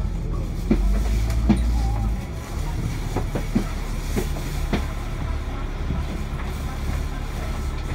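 Alexander Dennis Enviro500 MMC double-decker bus heard from inside, its engine and drivetrain running with a low hum as it slows to a stop behind another bus. The deepest rumble drops off about two seconds in, and scattered knocks and rattles from the bodywork come through.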